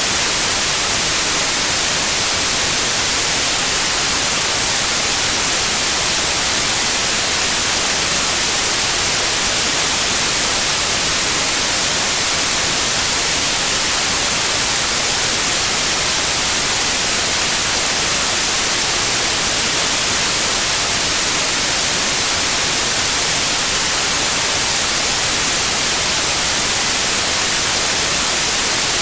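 Steady white-noise hiss. About halfway through, a single steady, very high-pitched tone at 9645 Hz comes in on top of it, a synthetic tinnitus-therapy signal.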